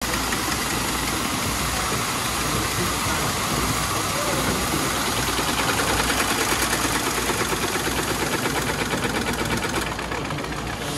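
Sir William Prescott steam pumping engine being started: machinery clattering with steam hiss, a fast rhythmic pulsing growing stronger from about five seconds in, and the high hiss thinning near the end.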